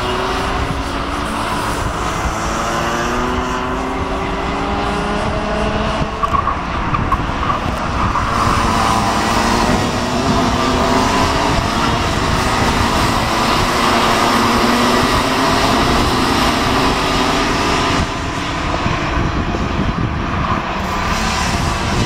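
A pack of Rotax Mini Max two-stroke racing kart engines running together. Several engine notes overlap, each rising and falling in pitch as the karts brake and accelerate through the corners.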